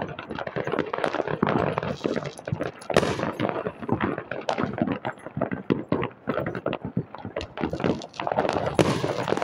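Fireworks and firecrackers going off all over, a dense, irregular crackle of bangs several a second, with louder cracks about three seconds in and near the end.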